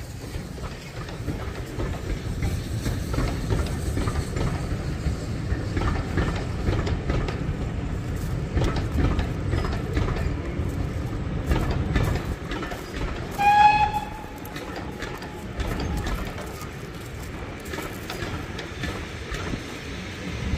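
Passenger coaches of a steam-hauled train rolling past on the track: a steady rumble with wheels clicking over rail joints, growing quieter over the last third as the train draws away. About two-thirds through, a short whistle sounds once.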